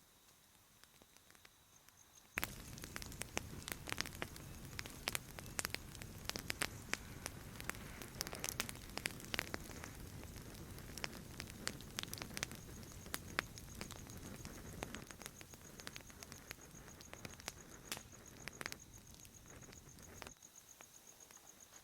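Campfire crackling and popping, a dense run of sharp snaps over a low rumble, starting suddenly about two seconds in and cutting off just before the end. Crickets chirp faintly as a steady high tone at the start and again at the end.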